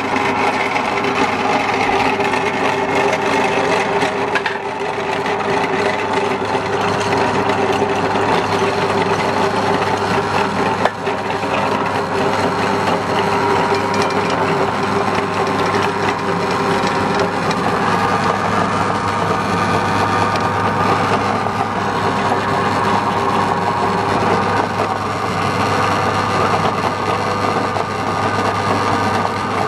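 Motorised meat grinder running steadily with a constant hum, its auger crushing pieces of calabash (bottle gourd) into mush. The sound starts suddenly as the machine is switched on.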